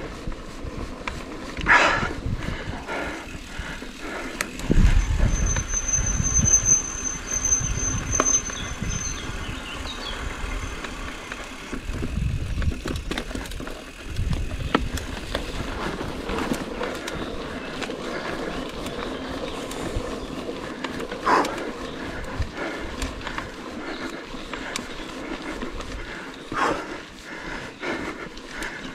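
Mountain bike riding over a rough trail, the bike rattling and knocking, with wind rumbling on the microphone. About five seconds in, the brakes squeal with a steady high whine for around four seconds.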